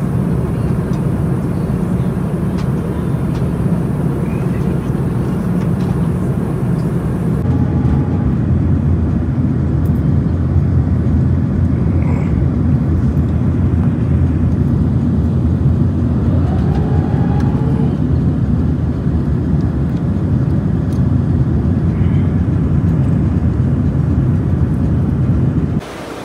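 Steady airliner cabin noise, the low drone of the jet engines and rushing air heard from a passenger seat. The sound changes character about seven seconds in and cuts off abruptly just before the end.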